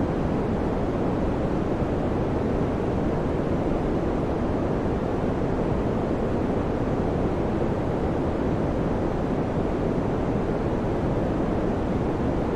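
Electric fan running steadily: an even, deep whoosh of moving air with no change in level or pitch.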